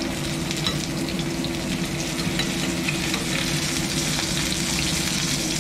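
Tofu slices sizzling as they shallow-fry, golden brown, in oil in a stainless steel skillet, with a metal slotted spatula scraping and turning them in light clicks.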